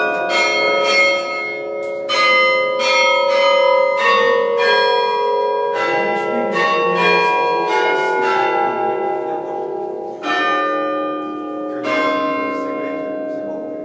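Tower bells of several different pitches struck one after another in a melodic run, about one or two strikes a second. Each note rings on under the next. The strikes slow near the end and the last one fades away.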